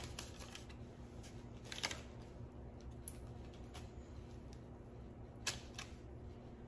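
Faint food-handling sounds as bacon-wrapped jalapeño poppers are made by hand and set on a parchment-lined tray: a few soft clicks and taps, two of them sharper, about two seconds in and late on.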